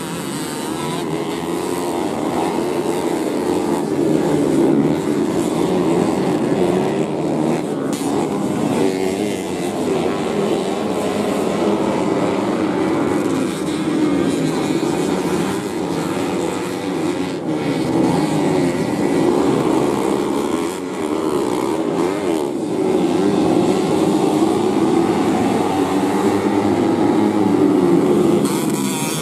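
Several underbone (bebek) motorcycles racing on a dirt grasstrack, their engines overlapping in a continuous loud drone that rises and falls in pitch as the riders open and close the throttle.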